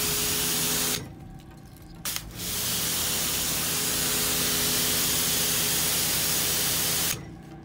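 Kranzle K1322TS pressure washer spraying water from its wand nozzle onto concrete: a loud, steady hiss. It cuts off about a second in, gives a brief spurt, runs again from about two and a half seconds and stops near the end.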